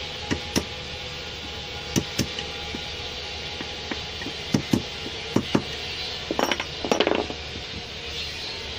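Sharp metal clicks and taps of a steel rod working at the metal piston hub of a vacuum brake booster, heard in quick pairs four times, then a short rattling run of clicks near the end. This is part of fitting the lock onto the booster's piston.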